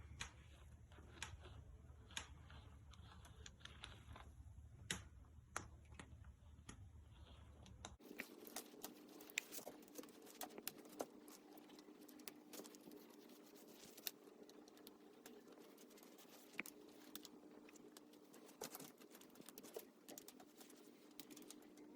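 Near silence: faint, scattered small clicks and ticks of handling over a low background hum, which changes to a steadier, higher hum about eight seconds in.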